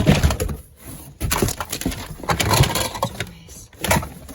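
Rummaging through boxes of toys and other stored items: repeated knocks, clatter and rustling as things are moved and handled.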